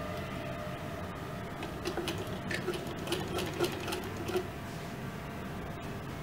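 MIECO sewing machine stitching a seam through cotton lawn fabric. The needle mechanism clicks at about five stitches a second from about two seconds in until just past four seconds, over a steady background noise.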